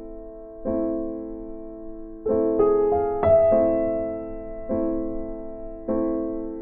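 Background piano music: slow chords struck roughly once a second, each ringing out and fading, with a quicker run of notes near the middle.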